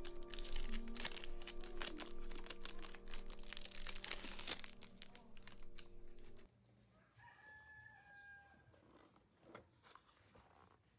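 Plastic wrapping crinkling and crackling as hands unwrap a pencil case, over faint steady tones. About six and a half seconds in it cuts to near quiet, where a rooster crows once, faint and distant.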